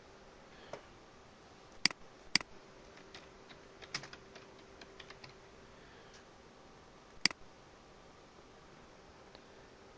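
Computer keyboard keys clicking in a few scattered keystrokes, three of them sharp and loud, with softer taps between, over a faint steady hum.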